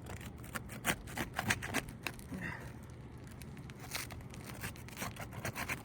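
Old, brittle asphalt shingles being lifted at the laminate strip, cracking and tearing in a run of sharp crackles and snaps, clustered about a second in and again near the end. The crackling is the sign of shingles too brittle to lift cleanly for a repair.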